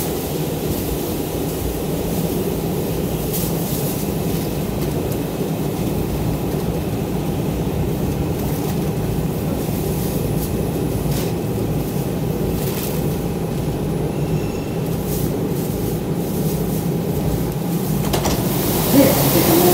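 Inside an R142 subway car running on the rails: a steady rumble of wheels and motors, with scattered clicks and a faint squeal of wheels. Near the end a hiss rises over the rumble.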